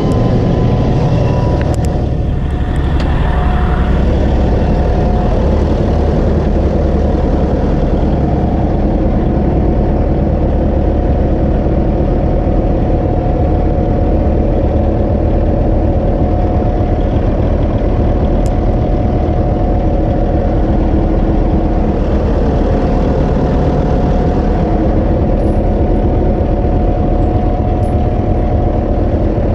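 A large engine running at a steady speed: a constant heavy drone with a steady whine above it, unchanging apart from a brief shift about two seconds in.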